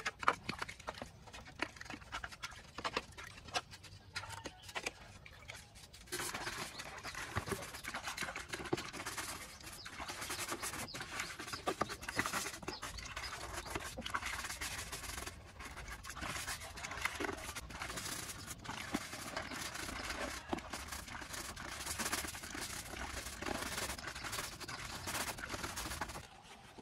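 Brush scrubbing the wet plastic cabinet parts of an old CRT television in a basin of water: quick scraping and rubbing strokes, sparse at first and denser and louder from about six seconds in.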